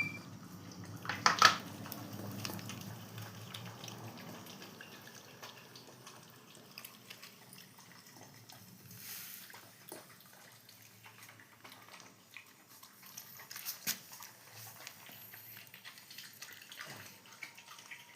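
Dogs chewing soft papaya: scattered wet clicks and smacks of mouths and teeth on the fruit, with a louder flurry about a second in.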